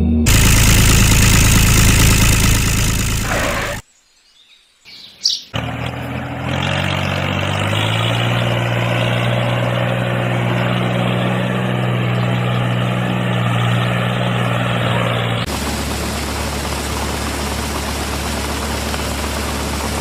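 Small electric motors of miniature model farm machines running in separate edited clips: steady noise at first, a short near-silent gap about four seconds in, then a steady motor hum that changes to a lower hum about two-thirds of the way through.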